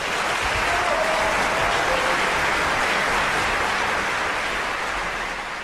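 Audience applauding: dense, steady clapping from a crowd that tapers off near the end.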